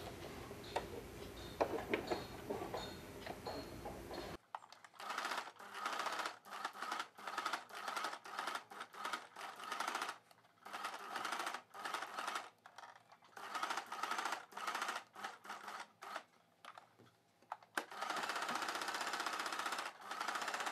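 Electric sewing machine stitching a curved seam through three layers of fabric in many short stop-start runs, then running steadily without a break for the last few seconds.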